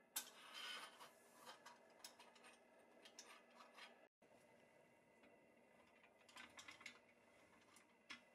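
Steel axle rod being slid through a pressed-steel toy truck frame: a sharp metal click, a short scrape, then light clicks and taps. More small clicks come about six seconds in as the wheels are handled.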